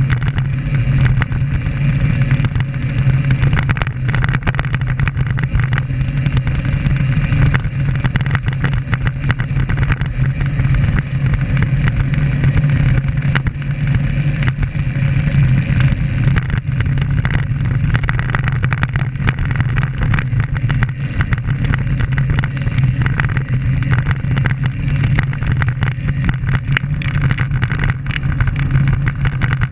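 Steady wind and road rumble picked up by a camera mounted on a road bicycle rolling along asphalt, heavy in the low end.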